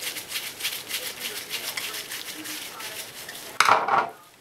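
A flathead screwdriver scraping and turning in a small screw on a bathtub faucet part: rapid repeated scratchy strokes, about four or five a second. About three and a half seconds in comes a brief, much louder handling bump, after which the scraping stops.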